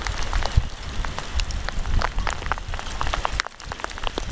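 Heavy rain mixed with hail: a steady hiss with many sharp ticks of stones striking, and wind rumbling on the microphone.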